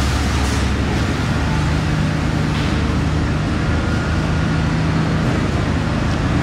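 A steady, loud mechanical drone with a low, even hum, like an engine or machine running continuously under a noisy background wash.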